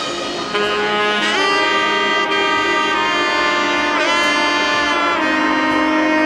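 Background music: a melody of long held notes with two swooping pitch bends, about a second in and again near four seconds.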